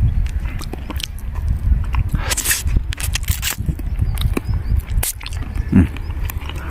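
A person chewing and crunching the small bones of a stewed pigeon close to the microphone: irregular crunches and clicks over a steady low rumble.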